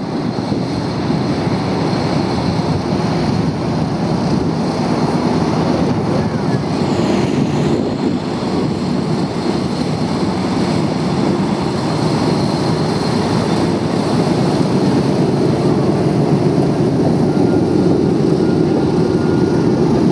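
The four Wright Cyclone radial piston engines of a B-17 Flying Fortress running as it taxis, with a steady propeller drone that grows slowly louder.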